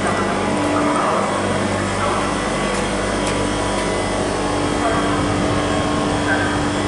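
Steady hum of a PESA Elf EN76 electric multiple unit's onboard equipment (converters and air-conditioning fans), with several steady tones over an even whirring noise.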